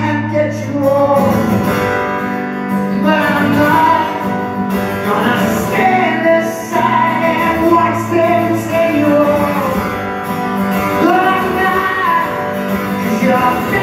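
Acoustic guitar strummed steadily under a singing voice holding long notes, played live.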